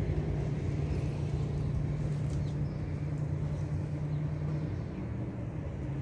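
Distant city traffic rumble with a steady low hum that weakens about five seconds in.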